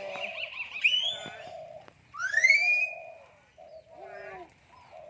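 Myna birds calling: gliding whistles, the loudest a rising whistle about two seconds in that levels off and holds, over a repeated lower note.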